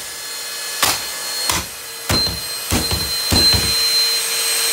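Hard plastic knocks and clatter from a Bissell stick vacuum being pulled apart by hand, about seven sharp knocks. Under them runs a steady whir with a thin high whine that grows louder about two seconds in.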